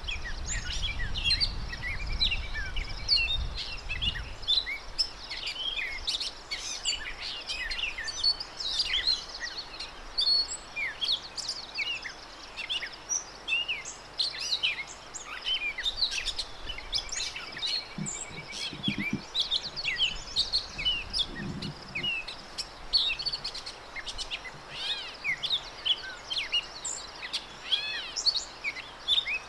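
Gray catbird singing: a long, rambling run of varied short squeaky, chirping and slurred whistled notes, one after another with hardly a pause.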